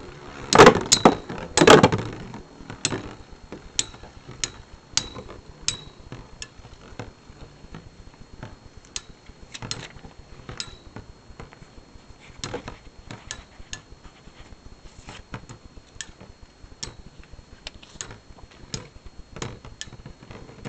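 Metal Beyblade spinning tops, Lightning L-Drago and Cyber Pegasus, battling in a stadium: several loud hits in the first two seconds, then scattered sharp clicks and knocks as the tops clash and rattle against each other and the walls, some with a short metallic ring.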